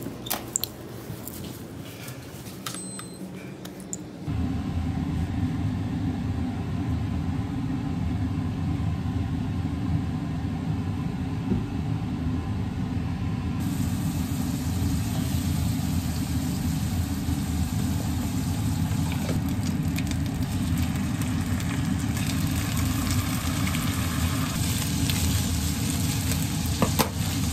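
Butter and then chicken pieces sizzling in a nonstick frying pan on a gas hob, stirred with a spatula. The sizzle grows stronger toward the end, over a steady low hum that sets in about four seconds in, after a few light clicks.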